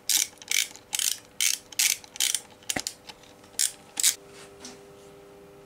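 Hand socket ratchet clicking in quick back-and-forth strokes on a bolt, about two to three strokes a second, stopping about four seconds in.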